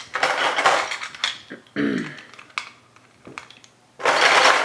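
Plastic bead puzzle pieces clattering and clicking as they are lifted off the plastic grids and handled, with a denser burst of clatter near the end.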